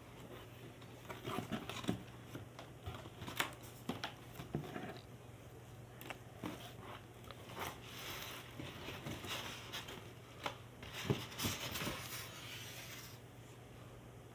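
Cardboard microwave-oven box being opened by hand: packing tape cut and torn, with irregular scratching, rustling and clicks of cardboard and packaging being handled.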